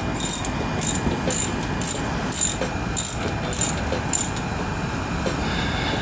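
Socket ratchet clicking in short bursts, about two a second, as a brake caliper bolt is tightened; the clicking stops about four seconds in.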